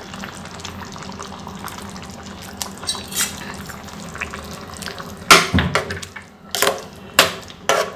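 Kuruma gravy simmering with faint wet bubbling and plopping as coconut paste goes into the pot. About five seconds in, a metal perforated ladle starts stirring it in, knocking sharply against the side of the pressure cooker pot about five times, half a second to a second apart.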